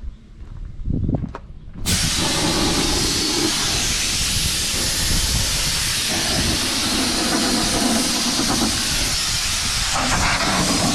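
Compressed air blasting from an air hose nozzle, cutting in suddenly about two seconds in and hissing steadily after that, blowing dust and crop debris off a round baler before power washing. A few light thuds come before it.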